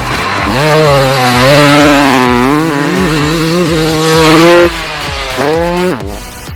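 Two-stroke-like dirt bike engine revving hard: the pitch climbs, holds at high revs, drops sharply about two-thirds of the way in, then rises again in a short rev before falling off near the end.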